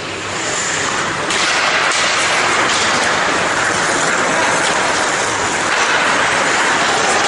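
Ice hockey play: a steady scraping hiss of skate blades on the ice, getting louder about a second in as play starts from the faceoff.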